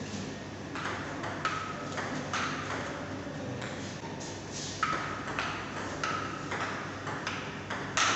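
Table tennis rally: the ball clicking back and forth off the table and the rubber-faced bats, about two hits a second, some with a short ringing ping.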